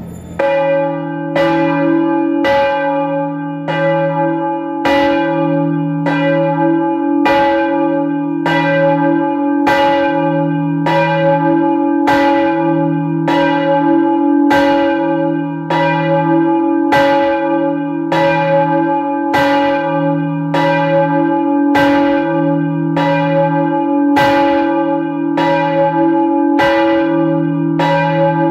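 A medium-large church bell swinging in its belfry, its clapper striking about once a second in a steady rhythm, each stroke ringing on into the next.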